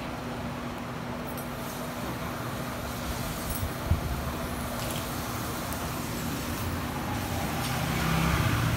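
Steady road traffic noise with one sharp knock about four seconds in. A vehicle's engine sound swells near the end as it passes close by.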